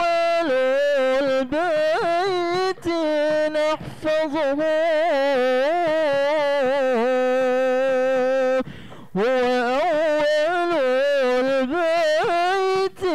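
A male lead singer's voice through a microphone, singing long, ornamented melismatic phrases of an Arabic devotional song, with a short break about nine seconds in.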